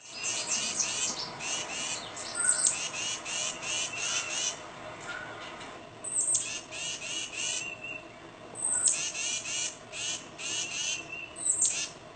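Tufted titmouse singing: several phrases of quick, evenly repeated clear notes, about three a second, each note sliding downward, with short pauses between phrases.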